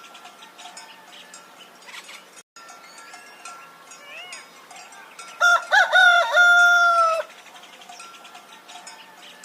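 Rooster crowing once, a cock-a-doodle-doo about five seconds in that ends on a long held note.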